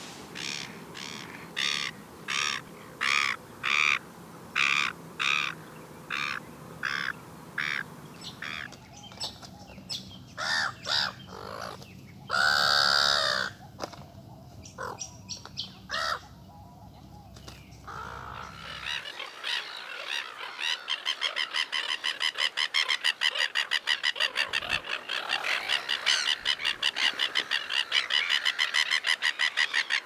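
Silver gulls calling: a run of short harsh calls about one a second, then more varied calls with one longer call about 13 seconds in. From about two-thirds of the way through comes a dense, rapid run of many calls. A low rumble sits under the first part and stops when the fast calling begins.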